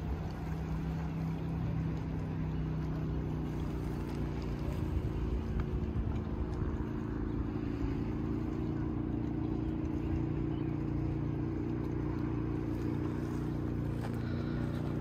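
A motor engine running steadily: a continuous low drone with a steady hum that does not rise or fall.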